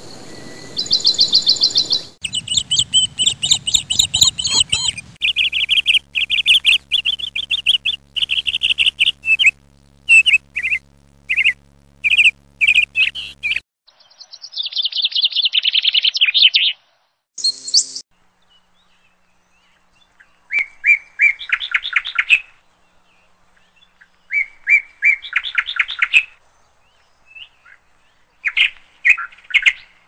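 Hummingbirds chattering in rapid chirping trills, in bursts of a second or two with short silences between them, and a higher, buzzier stretch about halfway through. A faint low hum runs under the first half.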